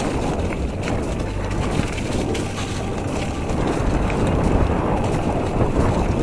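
Mountain bike rolling fast down a leaf-covered dirt forest trail: wind rumbling on the bike-mounted camera's microphone, tyres running over dirt and leaves, and scattered rattling clicks from the bike over bumps.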